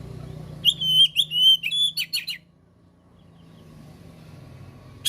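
Oriental magpie-robin (kacer) singing: a burst of loud, clear whistled notes followed by a quick run of short clipped notes, lasting under two seconds, then one sharp note near the end.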